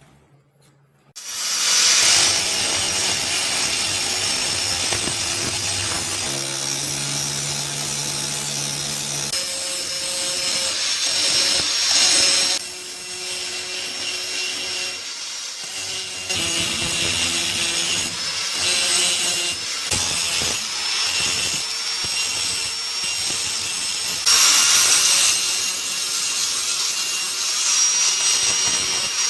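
A power tool shaping wood, running without a break from about a second in, with a steady high whine and a low hum that shift in pitch as it works.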